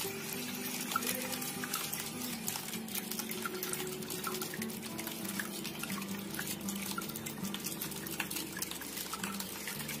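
Steady trickling and splashing of water falling from a small homemade cement waterfall fountain, with soft background music playing a slow melody.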